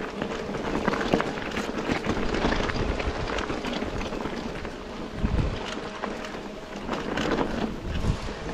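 Mountain bike riding over rough dirt and grass trail: wind buffeting the microphone, tyres rumbling and the bike rattling and clicking over bumps, with a heavier thump a little past five seconds in.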